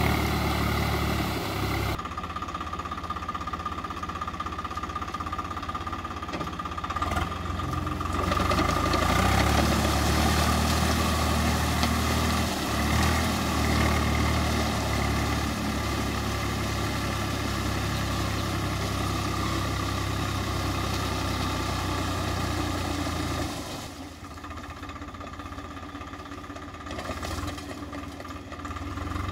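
Swaraj 744 FE tractor's three-cylinder diesel engine running steadily under load as it drives a rear rotavator through a flooded paddy field, puddling the mud. The sound grows quieter about five seconds before the end.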